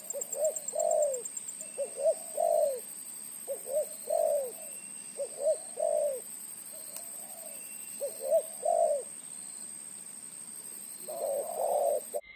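Spotted dove (terkukur) cooing over and over in short phrases of two or three quick, low notes, a phrase every second or two. Its voice is the deep, big kind kept for a decoy bird.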